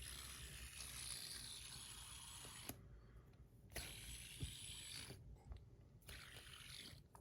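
Faint clicks and taps of a stainless steel bar spinner fidget toy being handled and spun, a few separate clicks over a low hiss.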